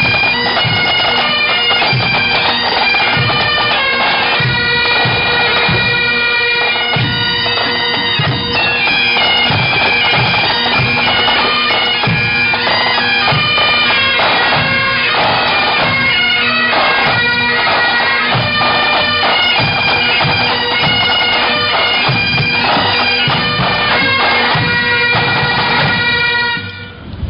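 Bagpipes playing a tune over their steady drone, with regular drum beats underneath, as a pipes and drums band does. The music stops suddenly near the end.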